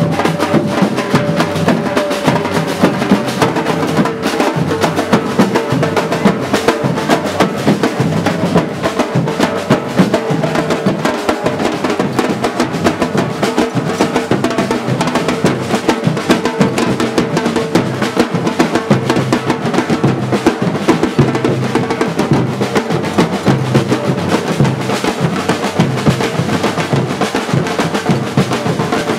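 Batucada samba percussion group playing a fast, steady drum rhythm, with deep bass drums under rapid snare-type strokes.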